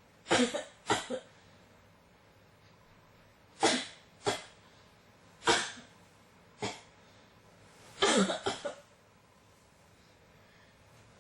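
A person coughing repeatedly in short, sharp coughs: two quick pairs at the start, single coughs every second or so in the middle, and a rapid run of four or five coughs near the end.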